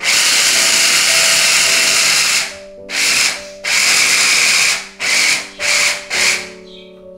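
Electric hand-blender chopper motor whirring as it crushes sweet corn kernels. It runs for about two and a half seconds, then in five shorter pulses that get briefer toward the end.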